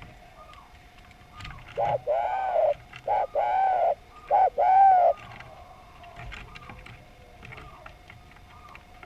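Spotted dove (derkuku) cooing: one phrase of three short-then-long coo pairs lasting about three seconds, starting about two seconds in. Fainter, higher coos sound before and after it.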